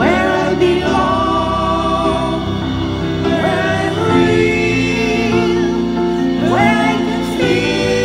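Live band performance: singers' voices in harmony over keyboards, bass and drums. Sung phrases swoop up into long held notes about every three seconds.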